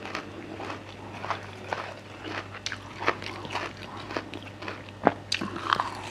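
Close-miked eating: crisp crunching and chewing of a miang kham leaf wrap filled with red ants, with a louder crunch near the end.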